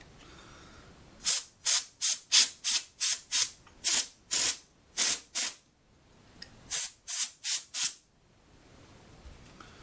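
Can of compressed air spraying through its straw nozzle in short hissing puffs, blowing dust out of a graphics card's heatsink: a quick run of about eleven puffs, a pause of about a second, then four more.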